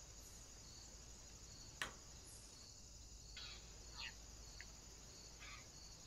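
Faint insect chirping, a little under two chirps a second, over a steady high hiss. A single sharp click comes about two seconds in, and a few short, soft scratchy sounds follow later.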